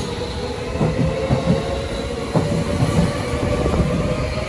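Electric commuter train running alongside the platform, its wheels clicking and knocking over the rail joints under a steady rumble, with a motor whine that rises slightly.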